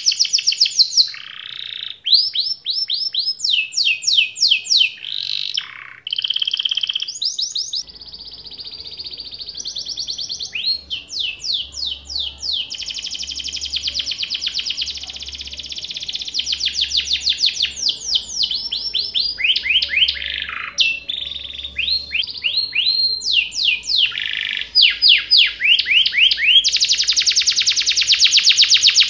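Domestic canary singing a long, varied song of rapid trills and fast runs of repeated sweeping notes, ending in a long, very fast rolling trill.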